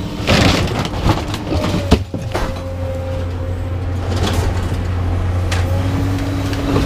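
Scrap metal being pulled off a truck bed, making short clanks and scrapes against a steady low hum.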